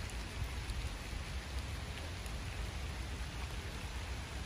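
Steady rain falling on wet paving and leaves, an even hiss with a low rumble underneath.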